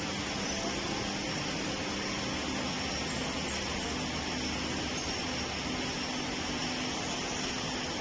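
CNC tenoning and mortising woodworking machine running with a steady whir, with no break or sudden event.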